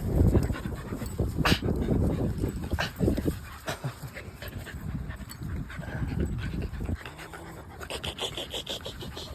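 Cocker spaniels panting hard after chasing a ball, with a steady low rumble and scattered clicks underneath.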